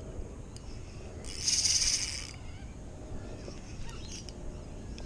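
Shimano Vanford 2500 spinning reel's drag buzzing for about a second, a little past one second in, as a hooked tailor makes a run and pulls line off the spool.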